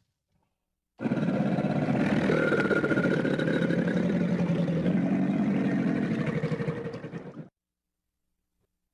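Crocodile bellowing: a low, rough, rapidly pulsing growl that starts about a second in, lasts about six seconds and fades out.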